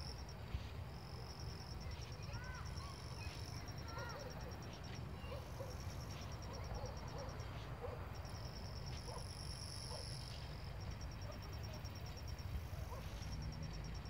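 Night insects chirping in repeated high-pitched pulsed trills, each bout lasting a second or two, over a steady low rumble.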